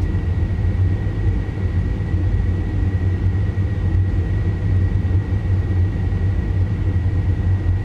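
Steady low rumble of simulated Boeing 737-800 engine and airflow noise from a full flight simulator's cockpit sound system, with a thin constant high whine over it.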